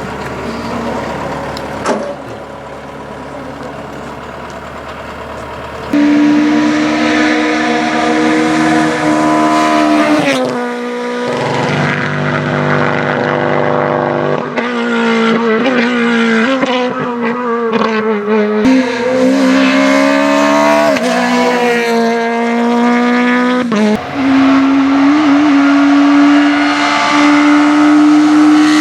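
Rally car engine at high revs, suddenly much louder about six seconds in, then held steady with the pitch dropping several times as it shifts or lifts off.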